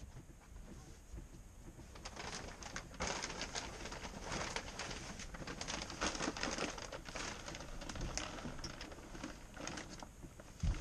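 Shrink-wrap plastic film crinkling and rustling with many small crackles as it is hauled up over a boat's arch. It starts about two seconds in, eases off near the end, and a single knock comes just before the end.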